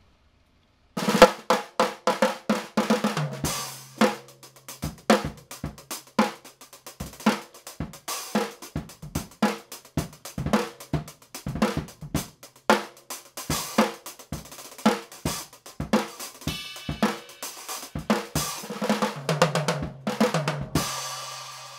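TOCA Kickboxx suitcase drum set played with carbon fiber 7A drumsticks: a groove on the kick drum built into the case, the 10-inch snare, the 10-inch tom, the hi-hat and the ride cymbal. The playing starts about a second in and ends on a final hit with a cymbal ringing out.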